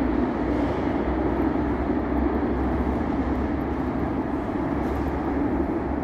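Steady low rumble and hiss in an underground metro station, echoing off the tiled walls.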